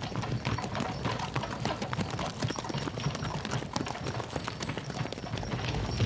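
Horses' hooves clip-clopping on a dirt road, many irregular hoofbeats, over a steady low rumble.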